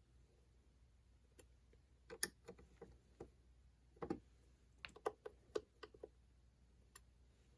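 Faint, irregular clicks and taps of a hex driver and small screws and washers being handled while fastening panels to an RC truck's roll cage.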